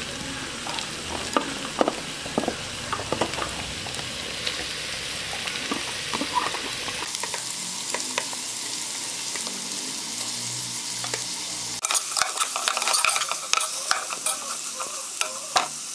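Julienned potato, carrot and bean strips sizzling in hot oil in a saucepan with onions as they are tipped in and fried. Near the end a spatula stirs them, clicking and scraping against the pot over the steady sizzle.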